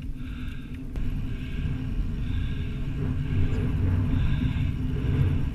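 Steady low rumble of wind buffeting a helmet-mounted action camera and fat-bike tyres rolling over sand while riding, growing a little louder after about a second.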